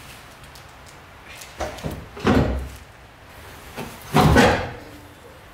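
Steel roll bar knocking against the Mazda Miata's sheet-metal body as it is lowered into place through holes in the body panels: a few separate clunks, the loudest about four seconds in.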